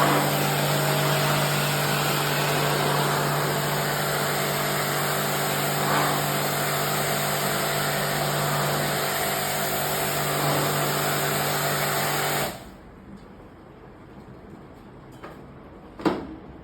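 A motor-driven machine running steadily with a low hum and a strong hiss, switched off abruptly about twelve and a half seconds in. A couple of light knocks follow near the end.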